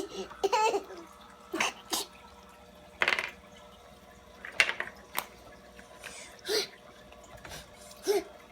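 Handling of plastic toy surprise eggs: scattered short clicks and rustles, with a few brief soft vocal sounds in between.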